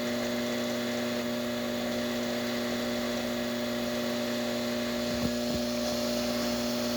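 Rocket E61 heat-exchanger espresso machine's pump humming steadily while pulling a shot at about 9 bar of brew pressure, with a brief knock about five seconds in.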